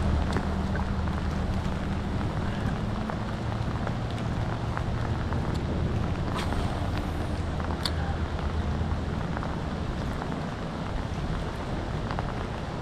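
Steady rain falling on the river, an even hiss with many small sharp drop ticks. A low steady hum runs underneath, dropping away a few seconds in and coming back near the end.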